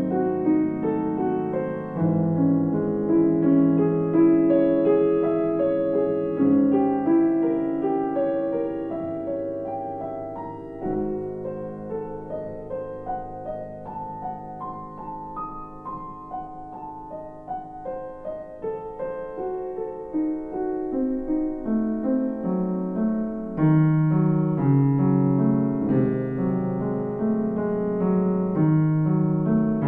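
Background piano music. A softer passage in the middle swells fuller and louder again about two-thirds of the way through.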